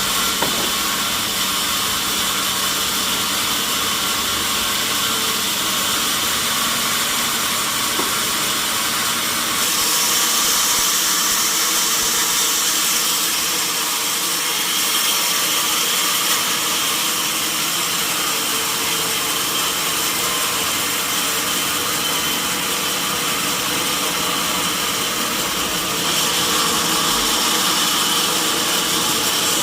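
Sawmill saw running and cutting through a large log: a steady machine noise with a high hiss that grows louder about ten seconds in and again near the end.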